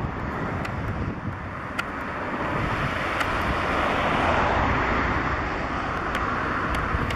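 Airbus A320-214's CFM56-5B turbofan engines on final approach, a steady jet noise that grows louder about four seconds in as the aircraft passes close. Wind buffets the microphone throughout.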